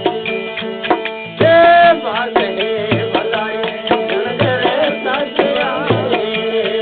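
Rajasthani devotional bhajan music: a hand drum keeps a steady rhythm under a held drone while a wavering melodic line comes in loudly about a second and a half in and winds on.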